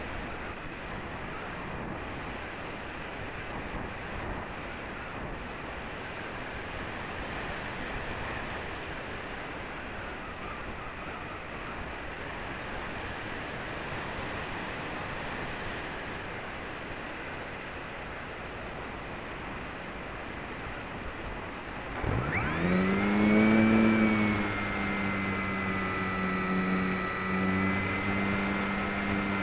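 Airflow rushing over the wing-mounted 808 #16 keychain camera as the HobbyKing Walrus glider glides with its motor off. About 22 seconds in, the electric motor and propeller spool up with a quick rising whine and settle into a steady high hum under power.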